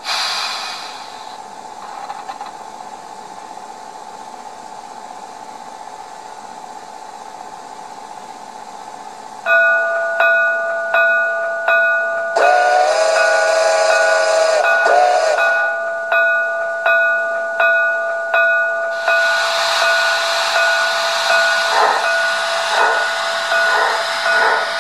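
Steam-locomotive sounds from the ESU LokSound sound decoder in an HO Erie Triplex 2-8-8-8-2 model. A short hiss comes at the start. About ten seconds in, exhaust chuffs start suddenly, about two a second, over a steady high whine. A steam whistle blows for about two and a half seconds, and then a long steam hiss runs under the continuing chuffs.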